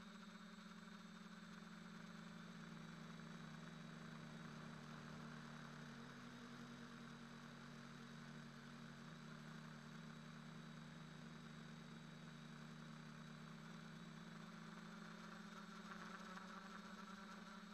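Faint, steady hum of a quadcopter's electric motors and propellers in flight, picked up by its onboard camera, with the pitch sagging slightly near the middle.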